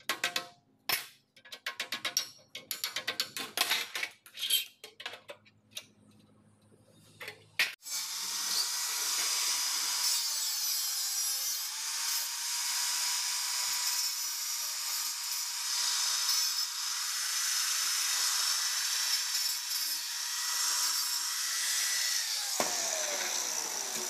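Sharp metal taps and clinks from a hand tool on a radiator for the first several seconds. Then an angle grinder starts and runs with a steady high whine over a hiss, the whine dipping briefly about three seconds after it starts. Near the end it is switched off and the whine falls away as it spins down.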